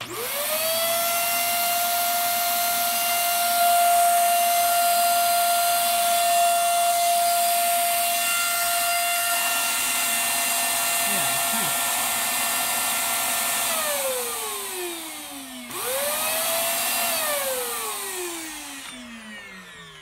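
Hoover Air Steerable upright vacuum cleaner's motor switched on, whining up to speed within about a second and running with a steady high whine. About 14 seconds in it is switched off and winds down, then is switched on again briefly and winds down once more near the end.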